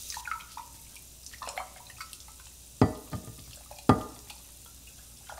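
Dishes clinking and knocking at a kitchen sink over a faint running tap, with two sharper knocks about three and four seconds in.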